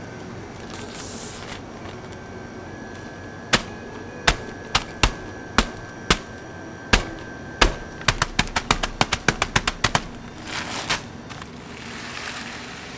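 A plastic bag of crisp flakes smacked by hand on a counter to crush them. Sharp slaps come about every half second, then a quick run of about five a second. Near the end comes plastic rustling as the crushed flakes are shaken out of the bag into a plastic tub.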